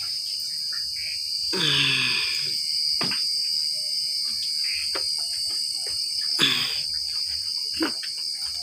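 Crickets chirping steadily in a high, even drone, with a few sharp clinks and knocks of metal tools and engine parts scattered through it and a brief voice sound about two seconds in.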